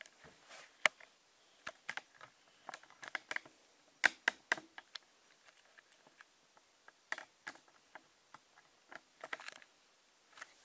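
Irregular sharp clicks and light knocks, several in quick clusters, from a camera being handled and repositioned over a tabletop.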